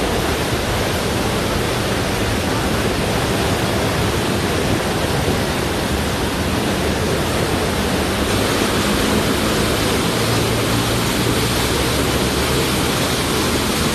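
Steady rush of floodwater surging through a storm-drain channel beneath a bridge.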